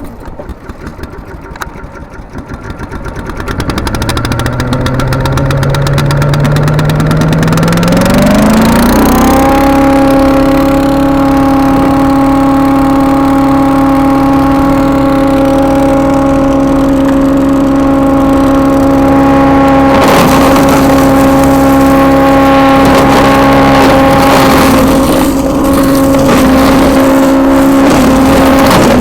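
A wood chipper/shredder's 212 cc single-cylinder engine runs slowly at first, then is throttled up about eight or nine seconds in to a steady high running speed. From about twenty seconds in, crackling and knocking noise rides over the engine.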